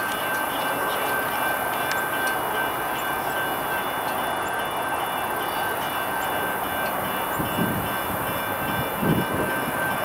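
Kansas City Southern diesel locomotive leading a freight train slowly through a curve: a steady noise of the engine and wheels on the rails, with several steady high squeals of wheel flanges on the curving track. A few low thumps come near the end.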